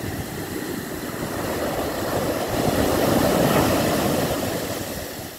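Ocean surf on a sandy beach: a wave breaking and rushing up the shore. The sound swells to a peak about three and a half seconds in, then fades as the water washes back.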